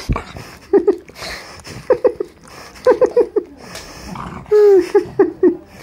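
Pug giving short, high whimpers in quick runs of two to four, with one longer whine about four and a half seconds in and breathy noise between them. A low bump comes right at the start.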